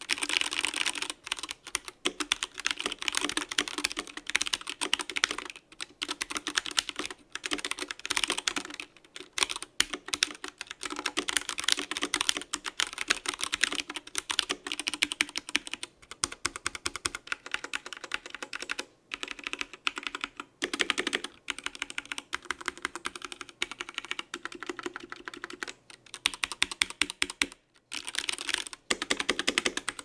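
Continuous fast typing on a BlitzWolf BW-KB1 mechanical keyboard with Gateron Brown switches: a dense clatter of key presses, pausing briefly about two seconds before the end.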